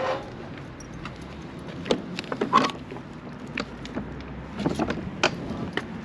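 An old weathered wooden barn door being worked open and climbed through: a string of irregular knocks, clatters and scrapes of wood and its metal latch, coming thickest in the second half.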